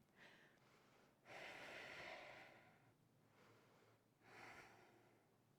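A woman's soft breathing through the pose: a long breath lasting about a second and a half, then a shorter one about three seconds later.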